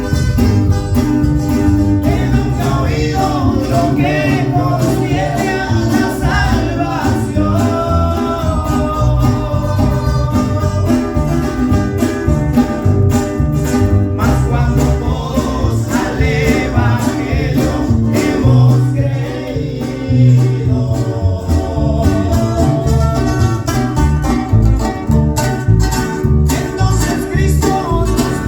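Small live acoustic group playing a Christian song in Mexican corrido style: requinto guitar picking melody lines over strummed rhythm guitar and bass.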